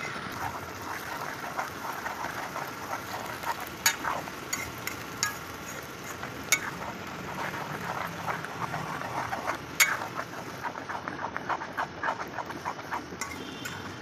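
Chopped vegetables sizzling as they fry in hot oil in a steel kadhai. A steel ladle stirs them, scraping around the pan and clinking sharply against the metal now and then.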